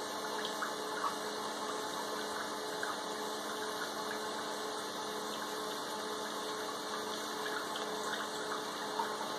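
DC TIG welding arc burning steadily at full pedal: an even hiss with a faint steady hum underneath.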